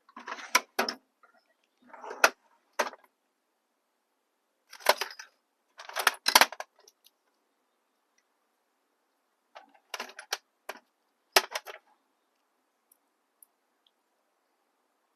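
Metal hand tools clinking and rattling in several short bursts with silent gaps between them, as when rummaging through sockets to find the right size.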